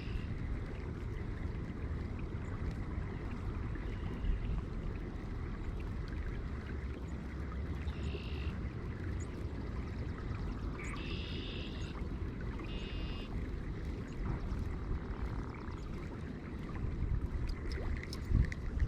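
Wind buffeting the microphone in a steady low rumble, with a few short, high-pitched calls several seconds in and some sharp clicks near the end.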